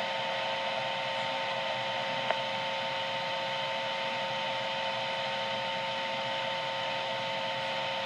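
Dead air on a NOAA Weather Radio broadcast through a Midland WR-120 weather radio's speaker: steady hiss with two faint steady tones under it, and a single faint click a little past two seconds in.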